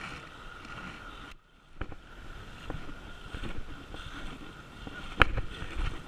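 Shallow river water sloshing and splashing around a wader's legs on a rocky riverbed, with scattered small knocks of stones. One sharp knock about five seconds in is the loudest event.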